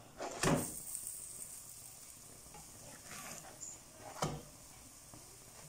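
Harcha semolina flatbreads frying on a hot griddle pan, sizzling faintly throughout. Two soft knocks come from the plastic spatula as the breads are flipped, about half a second in and again about four seconds in.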